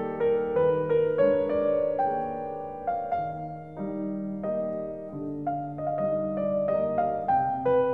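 Piano playing a classical piece: a melody of single notes over lower notes held underneath.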